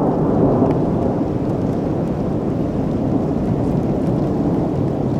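Thunder from a thunderstorm, a steady low rumble with rain falling. It is a little stronger in the first second.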